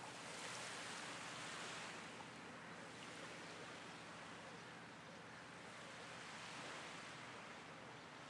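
Faint wash of small waves on a sandy beach, an even hiss that swells and eases slowly.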